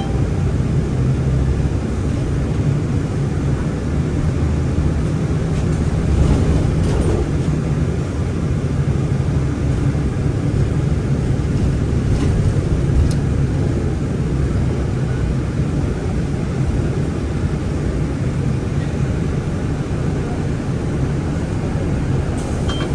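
Steady low rumble of a city bus's engine and tyres heard from inside the cabin while it drives, with a few faint rattles.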